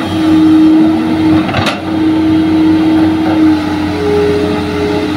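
Hitachi hydraulic excavator working, its diesel engine and hydraulics running steadily under load with a constant whine. A second, higher whine joins about four seconds in, and there is one short knock a little before two seconds in.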